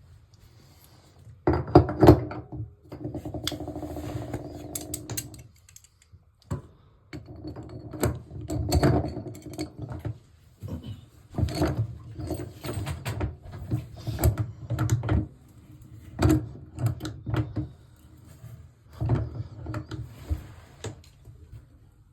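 New tub drain being threaded into its drain shoe and tightened with a hand tool: repeated turning strokes in short runs, metal scraping and clicking with squeaks, a pause between runs.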